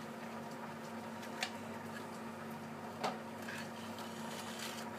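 Two faint clicks of a small cardboard box being handled as its contents are worked out, over a steady low hum.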